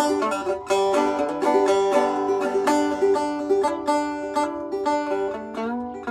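Fretless banjo, its tape fret markers removed, played as a steady run of plucked notes, with a few notes slid into.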